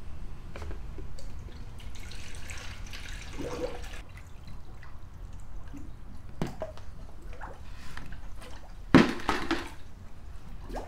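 Tap water poured from a bucket into a spill-free funnel on the radiator, dripping and splashing as the cooling system fills for a flush. A sudden loud knock comes near the end.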